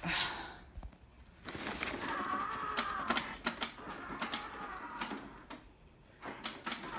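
Gemmy Beheaded Bride animatronic running with rapid, irregular clicking and crackling and a wavering tone from its speaker. The owner wonders whether the speaker is about to go bad.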